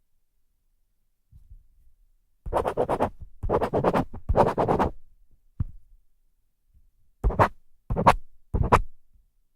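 Pen tip scratching across paper in separate strokes: three longer strokes one after another, a short tick, then three quick strokes near the end.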